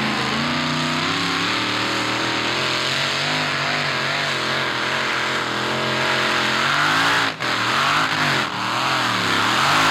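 Engine of a 950 kg free-class modified pulling tractor running at full revs as it drags the weight sled down the dirt track. Its pitch wavers over the second half, dips sharply for a moment about seven seconds in, and drops away abruptly at the very end.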